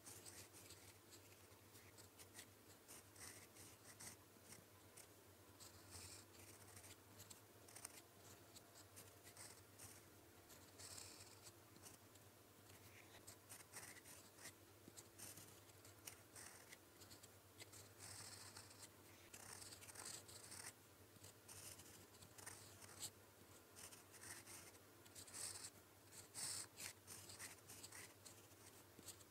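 Fountain pen nib scratching across paper, writing Korean characters in short strokes with brief pauses between them; faint and close.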